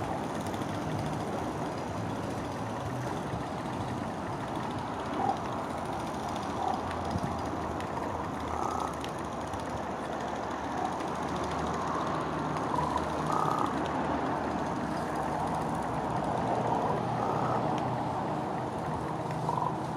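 Common raven croaking: a series of short, separate calls, more frequent in the second half, over a steady low background rumble.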